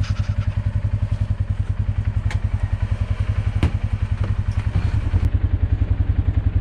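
A vehicle engine running steadily with a low, even throb of about ten pulses a second, and a couple of sharp clicks or knocks in the middle.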